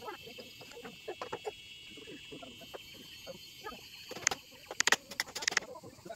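Several sharp knocks in quick succession, the loudest about four to five and a half seconds in, over a steady high-pitched background hum.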